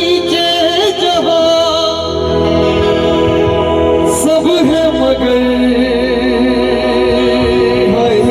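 Live band music in a slow ballad: a wavering melody line with vibrato over held chords and a steady bass, with a brief cymbal-like hiss about four seconds in.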